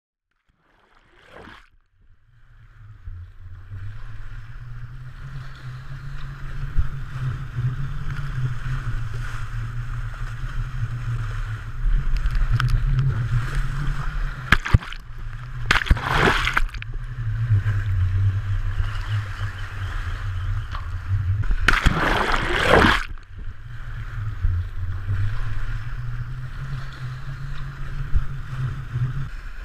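Sea water rushing and sloshing over a GoPro camera as it skims along the ocean surface, fading in over the first couple of seconds. Two louder splashes come, one about halfway through and another some six seconds later, as the camera cuts through the wash.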